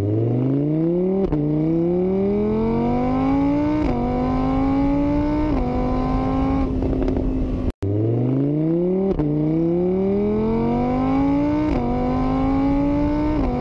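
A motor vehicle engine accelerating up through the gears. The pitch climbs and drops at each of three upshifts, then holds steady at cruise. The same run plays twice, with a brief cut-off near the middle.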